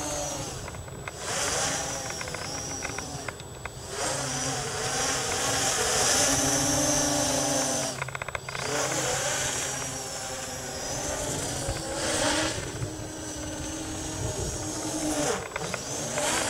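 V-tail quadcopter's electric motors and Gemfan propellers whining in flight, the pitch rising and falling with the throttle. The sound drops away briefly several times, about a second in, around four seconds, at eight seconds and near the end, as the throttle is cut.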